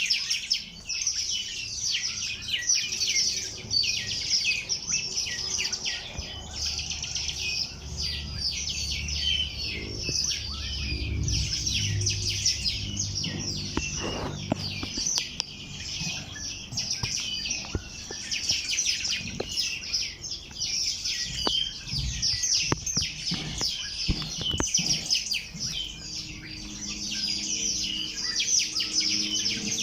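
Many small birds chirping and twittering together in a dense, continuous chorus of quick high notes, with a faint low rumble underneath partway through.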